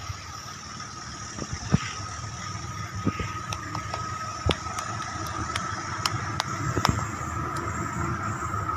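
Diesel-electric passenger train approaching, its low rumble growing steadily louder, with a steady humming tone that strengthens toward the end. A few sharp clicks cut through it.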